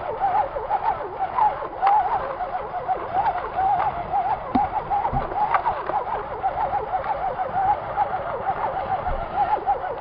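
Electric motor and gearbox whine of an RC rock crawler under load, its pitch wavering up and down constantly as the throttle is worked and the tires claw for grip in snow, with a few short knocks.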